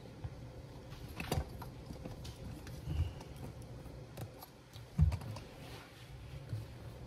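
Scattered light clicks and knocks from handling, with dull thumps about three seconds in and, loudest, about five seconds in.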